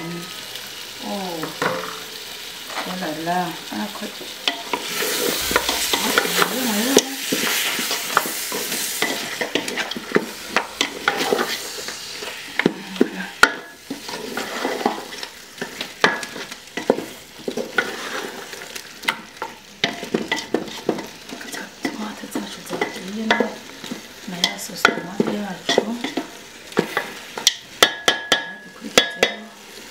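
Beef and tomato sauce sizzling in a hot aluminium pot while a wooden spoon stirs and scrapes, knocking repeatedly against the pot. About five seconds in, the sizzle swells into a louder hiss for a few seconds.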